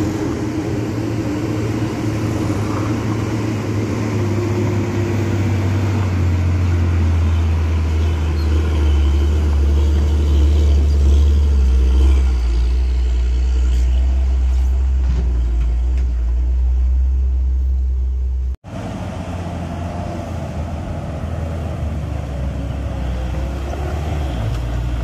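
Heavy diesel truck engine pulling up a steep dirt grade close by, a deep steady note whose pitch slowly sinks as the engine is loaded. About two-thirds of the way in, the sound cuts off suddenly and another truck's diesel takes over, climbing the grade.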